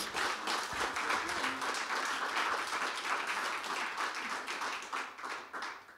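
A small audience applauding, the clapping dying away near the end.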